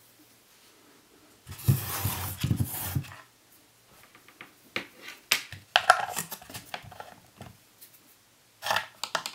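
Handling noises around a homemade wooden amplifier box: a rough rubbing noise for about a second and a half, then a run of small clicks and knocks as a DC power plug is pushed into the jack on its back panel, and a short rustle near the end.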